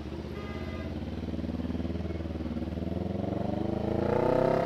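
CFMoto 400NK's 400cc parallel-twin engine, run through an SC-Project slip-on muffler with no silencer, pulling away and accelerating. Its pitch and loudness climb over the last couple of seconds, then fall away sharply near the end.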